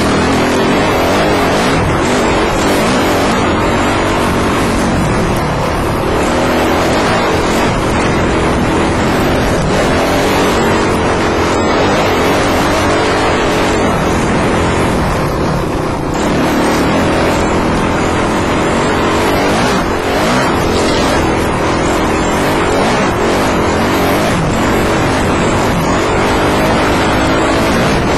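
Dirt bike engine running under way, its pitch rising and falling with the throttle, heard loud through a helmet camera with tyre and wind noise mixed in.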